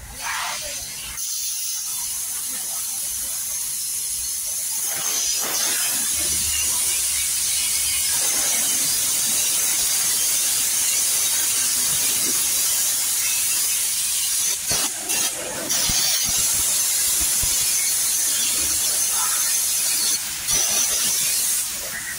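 Steady high-pitched hiss of a pressurised jet during scooter washing and servicing, dropping out briefly a few times in the second half.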